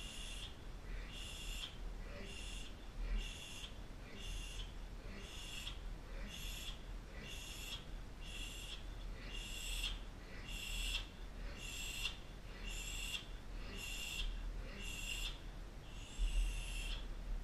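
Man's sharp, hissing breaths, about one a second, with a faint whistle to each, over a low hum. A low thump comes near the end.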